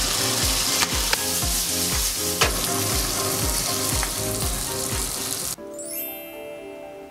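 Pork pieces sizzling in hot oil in a pan, with sauce poured in and the meat stirred; the sizzle cuts off suddenly about five and a half seconds in. Background music with a steady beat plays throughout.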